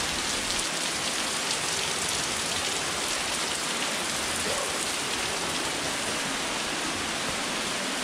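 Water falling in heavy drops onto wet shale and a stone path, a steady spattering hiss like a downpour.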